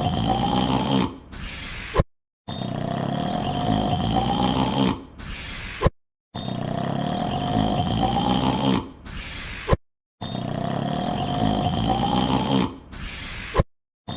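A man's long drawn-out yawn, rising in pitch over a low rumble, looped: the same yawn repeats about every four seconds, each pass ending in a sharp click and a brief gap of silence.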